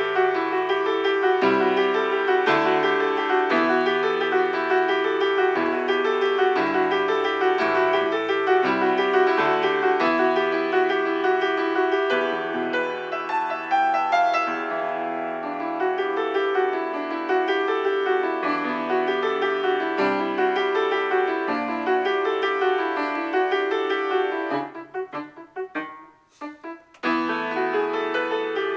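Piano being improvised: sustained chords under a wandering melody, breaking near the end into short detached notes with brief pauses.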